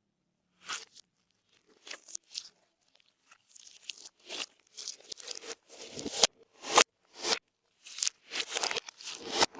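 Slime being squeezed and stretched by hand, giving crunchy pops and crackles. A few pops come in the first seconds, then they come fast and irregular from about four seconds in.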